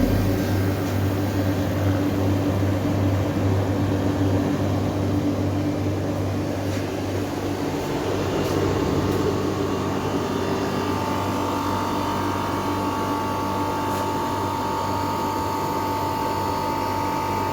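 Window air conditioner running steadily with a low mains hum and fan noise; a steady higher whine comes in about ten seconds in.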